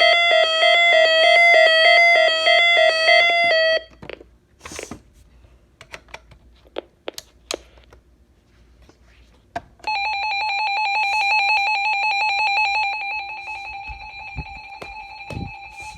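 Electronic alert tones from weather alert radios. A fast-stepping, chime-like siren tone cuts off about four seconds in, and a few sharp clicks follow. About ten seconds in a steady, rapidly pulsed beep tone starts, loud at first and dropping in level a few seconds later.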